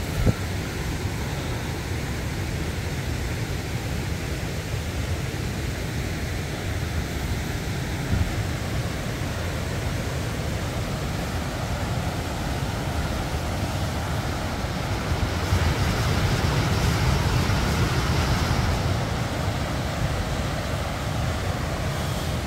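Wind buffeting the microphone: a steady low rumble with a rushing hiss that swells for a few seconds past the middle.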